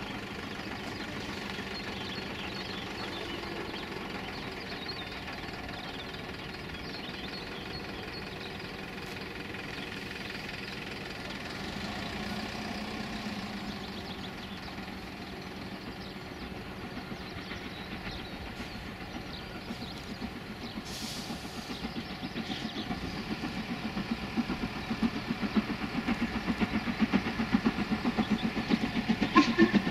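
Steam locomotive working hard as it approaches with a passenger train: a distant steady rumble, then rhythmic exhaust beats that become audible about two-thirds of the way in and grow louder as it nears.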